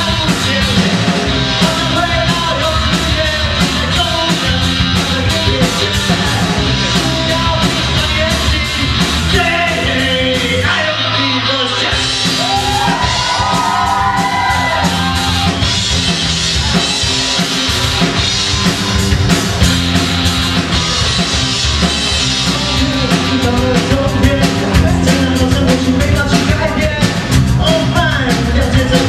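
Live rock band playing: singing over electric guitar, bass guitar and drum kit, with a short break in the drums and cymbals about eleven seconds in.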